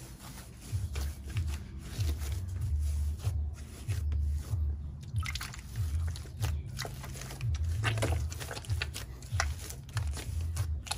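Hands kneading and squeezing wet corn masa for tamales: a wet squishing with irregular dull thuds as the soft dough is pressed down and worked against the table.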